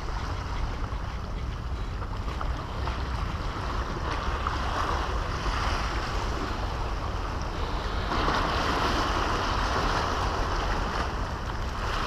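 Sea waves washing against a concrete-block breakwater, swelling twice, with wind rumbling on the microphone.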